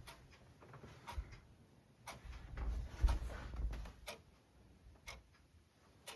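Faint, irregular clicks and ticks with low rumbling handling noise, the rumble heaviest about two to four seconds in.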